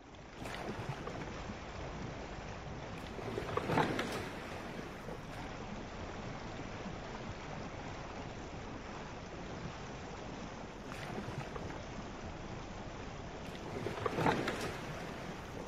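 Steady rushing outdoor ambience that swells louder twice, about four seconds in and again near the end.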